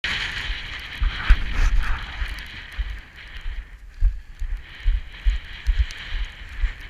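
Wind buffeting the microphone in uneven gusts, with a steady hiss of wind behind it.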